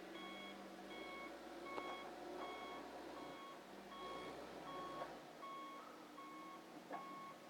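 Snow-clearing bulldozer's reversing alarm beeping faintly and steadily, about one beep every three-quarters of a second, as the machine backs up.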